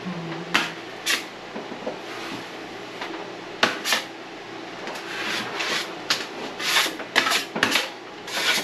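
Drywall knife scraping against the edge of a mud pan, working setting-type joint compound: short rasping scrapes and clacks, a few spaced out at first, then coming thick and fast in the last few seconds.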